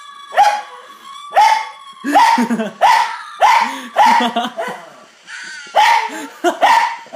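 Cairn terrier barking at recorded fox noises played from a phone: a run of about ten short, sharp barks with a brief pause a little before the end.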